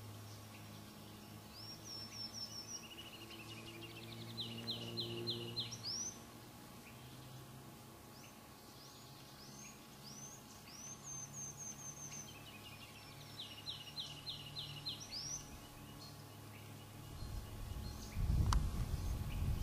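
Small birds singing: several bouts of quick runs of four to six short, rising notes, some higher and some lower, over a faint steady low hum. Music comes in near the end.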